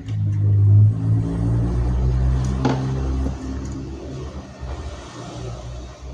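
A steady low engine-like hum, loudest in the first second and slowly fading, with a single sharp click a little under three seconds in.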